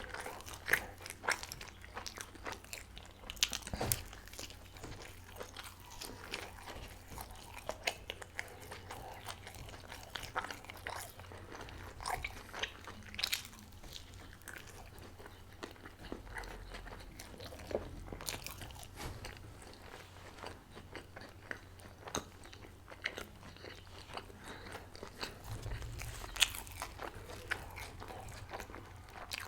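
Close-miked eating of chicken-stuffed crêpe rolls: bites and chewing, with many sharp, irregular clicks of the mouth and food.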